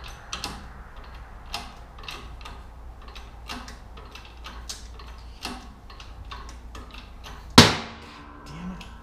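Bottle-jack shop press pumped by hand to push a U-joint out of a driveshaft yoke, clicking about twice a second with each stroke of the handle. About three-quarters of the way through comes one loud sharp crack with a short ring, the sound of the U-joint bearing cup breaking loose under pressure.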